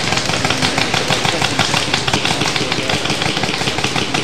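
Paintball markers firing: a fast, continuous run of sharp pops, several shots a second and overlapping.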